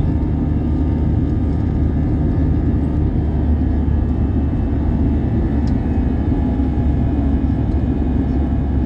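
Airbus A320 in its climb after takeoff, heard inside the cabin over the wing: the jet engines and the air rushing past the fuselage make a steady low rumble.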